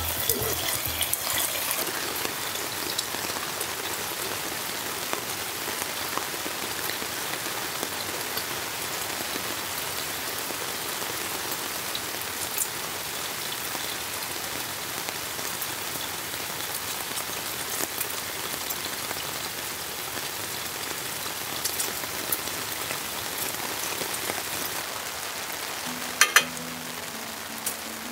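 Heavy rain falling steadily as a dense, even hiss, with a few sharp clicks near the end.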